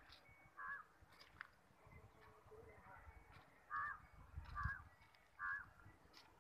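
A crow cawing faintly: four short caws, the last three about a second apart.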